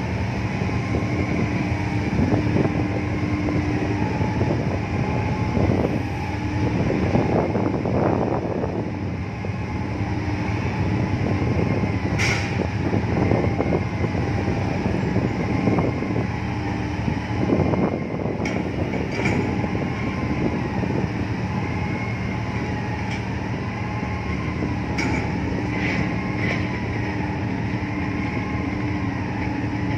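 Steady low drone of ship engines and machinery, with constant hums and a higher tone that wavers up and down over and over. A few sharp clicks stand out, one about twelve seconds in.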